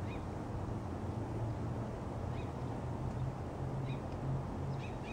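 Steady low rumble of a propane burner still firing under a kettle of wort at the end of a short boil.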